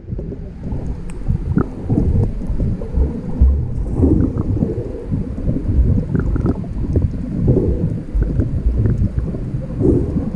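Wind buffeting the microphone: a loud, uneven low rumble that swells and drops with the gusts.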